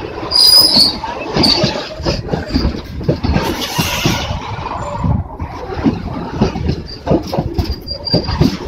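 Goods train wagons rolling past, their wheels clacking irregularly over the rail joints, with a brief high-pitched squeal about half a second in and again near the end.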